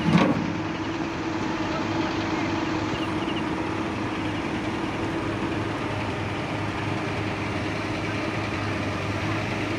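Large diesel engine idling steadily, an even low hum, with one short loud thump right at the start.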